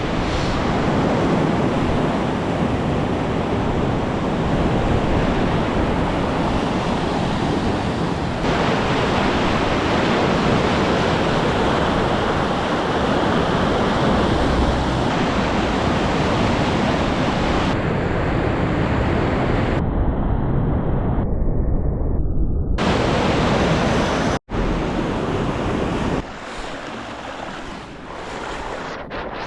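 Rushing of a river in flood, a loud steady roar of fast-moving water, with wind buffeting the microphone. It changes abruptly several times between shots, drops out for an instant a little before the end, and is quieter for the last few seconds.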